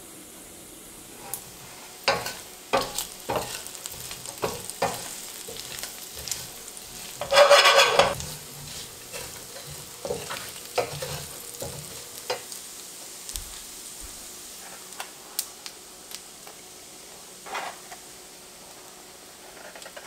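Diced cured pork frying in a stainless steel skillet: steady sizzling while a wooden spatula stirs and scrapes it, with scattered sharp clicks and knocks of utensils and a loud rush of sizzle about seven seconds in.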